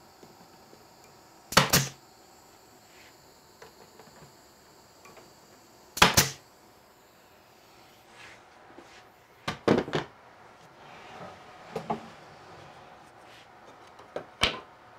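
Pneumatic nail gun firing sharp shots several seconds apart, nailing plywood face-frame strips onto a plywood cabinet. A cluster of shots or knocks comes near the end.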